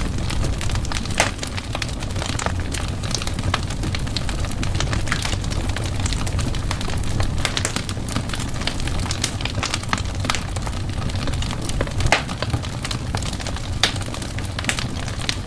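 Wood fire in a fireplace crackling and popping, with irregular sharp snaps over a steady low rumble of the flames.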